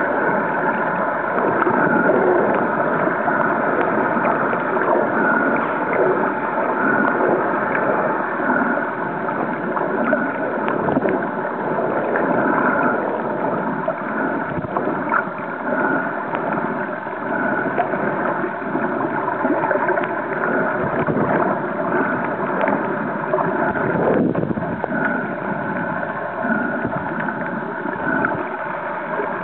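Steady, muffled underwater noise heard through an underwater camera: a dense rushing with a faint droning hum underneath.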